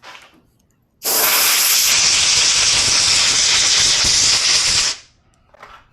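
Compressed air from an air hose blowing dust out of a camera lens: one loud, steady hiss that starts about a second in, lasts about four seconds and cuts off.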